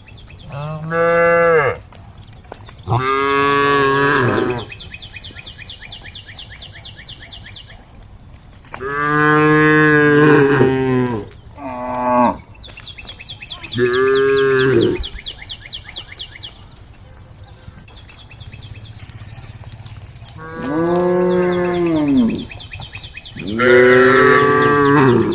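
Cows mooing: about seven long, loud calls, each lasting one to two seconds, with pauses between them.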